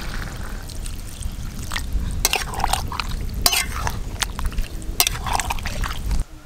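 Water poured from a clay jug into a metal pan of mutton curry and potatoes, then a metal ladle stirring, clinking and scraping against the pan as the curry sloshes. A steady low rumble runs underneath.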